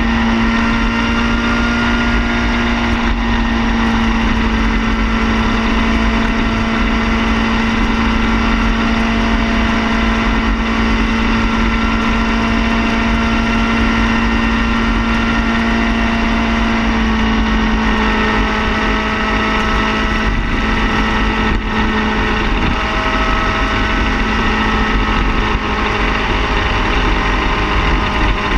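Car engine idling steadily, holding an even, unchanging pitch, with a slight shift in tone about halfway through.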